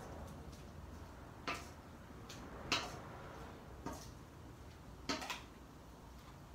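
Plastic squeeze bottle of mayonnaise squirting onto a bowl of salad: about five short, sharp squirts, a second or so apart.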